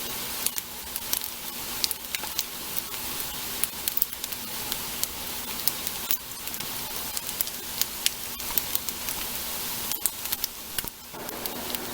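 Tofu nuggets frying in grapeseed oil in a pan: a steady sizzle with frequent sharp crackles and pops of spitting oil.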